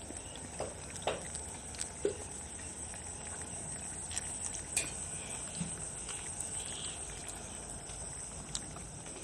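A crowd of young puppies eating kibble mixed with wet dog food: scattered crunching and smacking clicks, with two short squeaky sounds about one and two seconds in.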